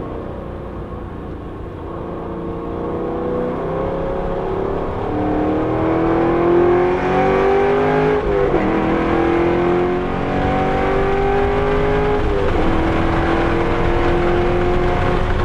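2014 Camaro 1LE's V8 engine pulling hard under acceleration, heard from inside the cabin, climbing in pitch through the gears. The pitch drops at upshifts about eight and twelve and a half seconds in. Tyre and road noise sits underneath.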